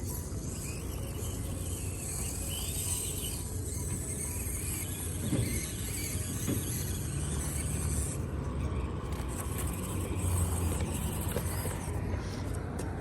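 Axial SCX24 1/24-scale RC crawler's small electric motor and gears whirring as it crawls over dirt, with a couple of light knocks about five and six and a half seconds in. A high hiss drops away about eight seconds in.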